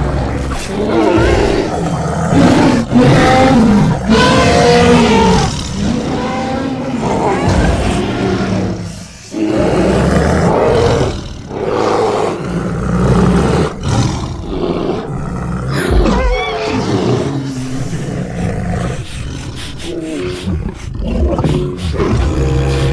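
A series of loud bear roars and growls with short breaks between them, made as creature sound effects for the extinct short-faced bear Arctotherium bonariense from mixed bear recordings.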